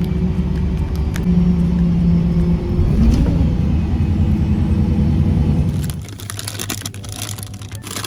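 Steady low rumble of a car's engine and road noise for about six seconds, then it drops away into clicks and rustling.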